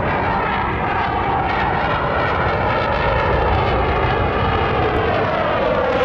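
A CF-18 Hornet twin-engine fighter jet flying past overhead: a loud, steady jet roar whose pitch slides downward as it passes.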